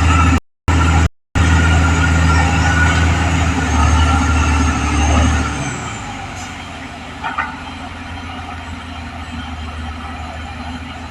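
Caterpillar D6R XL bulldozer's diesel engine running with a strong, steady low drone. The sound cuts out briefly twice near the start. About halfway through, the low drone drops away abruptly and a quieter, steady machine sound remains.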